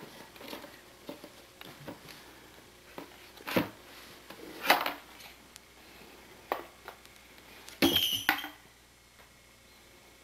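Toys handled by a toddler: hard plastic and wooden toys knocking and clattering against each other and the tub, a few separate clatters with quieter handling in between.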